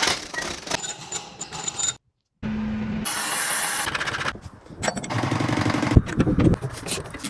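A string of short clips of hands-on mechanical work: metal clanking and tool noise, cut off for a moment about two seconds in, then a brief steady hum, a loud stretch of noisy machine running, and more clatter with a sharp metallic knock about six seconds in.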